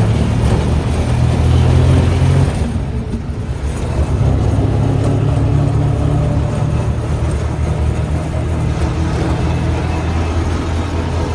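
Riding in a tuk-tuk: its motor running steadily under road and wind noise, easing off briefly about three seconds in and then picking up again.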